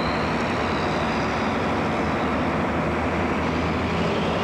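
Fire truck engine running steadily.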